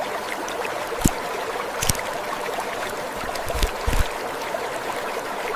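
Steady rush of running water, like a small stream, with a few light knocks about one, two and four seconds in.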